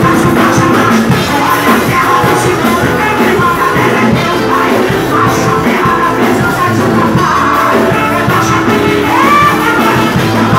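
A woman singing a worship song into a microphone over loud amplified band music.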